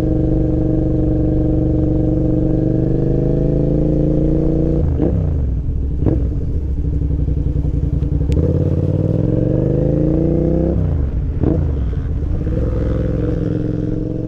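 Suzuki SV650 V-twin engine heard from the passenger seat while riding. Its revs hold steady, then break with gear changes about five and six seconds in, climb for several seconds under acceleration, and drop with another gear change near eleven seconds in.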